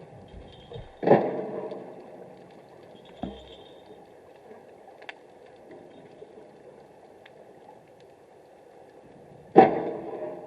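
Underwater ambience with a steady low rumble, broken by two loud knocks about eight seconds apart, each ringing out for about a second. There is a softer knock about three seconds in and a few faint clicks.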